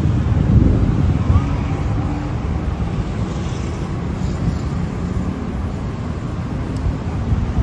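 Steady city street traffic, a low rumble of passing vehicles, a little louder in the first second or so and then even.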